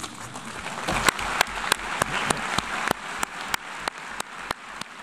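Audience applauding, the clapping building up over the first second and cut off abruptly near the end.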